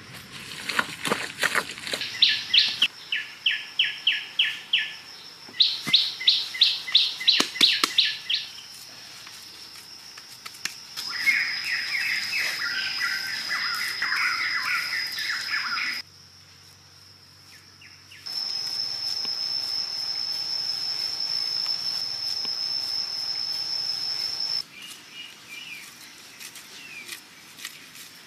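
Forest ambience: birds chirping in rapid repeated series, then a steady high-pitched insect whine that cuts out and back in abruptly.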